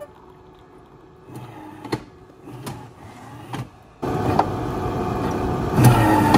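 Automatic coffee machine dispensing coffee into a mug. A few soft clicks and short hums at first, then about four seconds in a louder steady machine hum takes over as the coffee keeps pouring.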